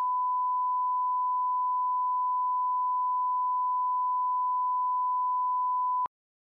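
Steady one-kilohertz reference test tone, the pure line-up tone that goes with television colour bars, cutting off suddenly about six seconds in.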